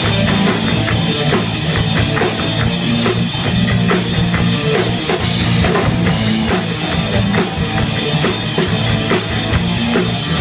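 Live rock band playing an instrumental passage between vocal lines: electric guitars over a steady drum-kit beat with about four hits a second.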